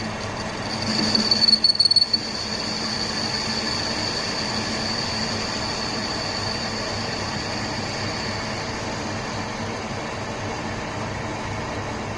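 Manual lathe running while facing an iron rod: a steady machine hum with a high-pitched whine over it. The whine is loudest and fluttering between about one and two seconds in, then settles.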